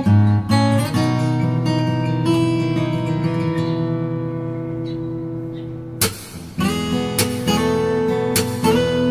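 Background music on acoustic guitar, with strummed chords. A held chord rings and slowly fades, then the strumming picks up again about six seconds in.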